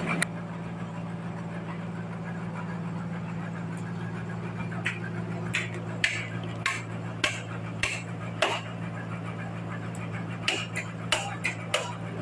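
Hand hammer knocking on wood, a dozen or so sharp, irregular blows starting about five seconds in and coming closer together near the end. Under it the sawmill's engine idles with a steady low hum.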